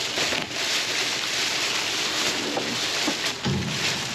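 Steady rain falling on a metal dumpster, an even hiss, with a plastic trash bag rustling and a short bump about three and a half seconds in as a grabber tool tugs at it.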